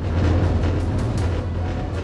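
Loud background music with a heavy low rumble that cuts in suddenly at the start.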